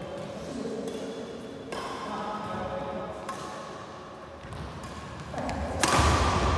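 Badminton doubles rally: rackets striking the shuttlecock as sharp clicks a second or two apart, with thuds of shoes on the court. A loud smash comes near the end.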